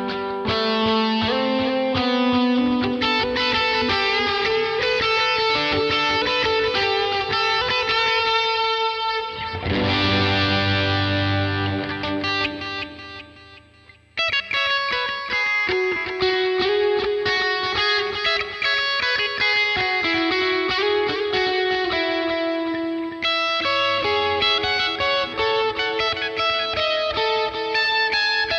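Electric guitar played through a Vox AC30 amp simulation, lightly overdriven, picking melodic single-note lines. About ten seconds in a chord is struck and rings out, fading almost to silence, then the picking starts again.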